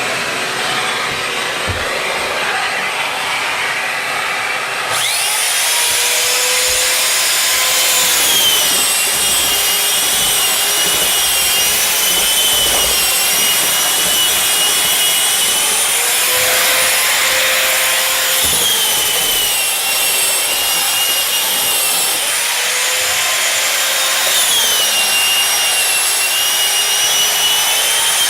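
Power drywall sander running with a shop vac drawing dust through it, the pad rubbing over first-coat joint compound. The motor whine sags and recovers several times as the sander is pressed against the wall. The scratchy sanding noise gets louder about five seconds in.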